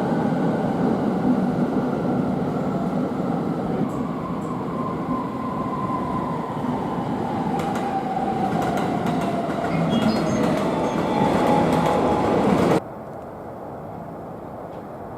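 Electric commuter train running through the station, its motor whine falling slowly in pitch over a loud rumble, with wheel clacks and clicks bunched in the last few seconds. About 13 seconds in the sound drops abruptly to a much quieter steady hum.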